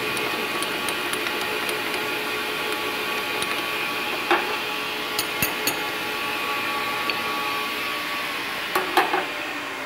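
Metal lathe running steadily with a motor whine while a No. 41 drill in the tailstock chuck drills through a brass set screw held in a collet chuck. Scattered light ticks and a few sharper clicks come through, the last pair near the end as the drill is backed out.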